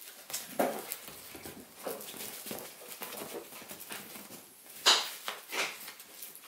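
Toy terrier puppy playing with a fabric toy on a sofa: irregular scuffling and short sounds of the puppy and toy, the loudest about five seconds in.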